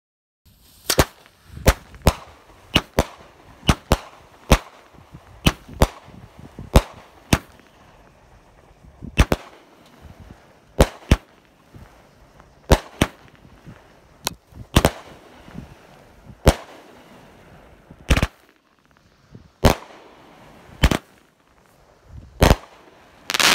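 Galactic Jack 17-shot consumer firework cake firing: a long series of sharp reports as shells launch and burst, irregularly spaced, often in close pairs, with a denser burst of pops near the end.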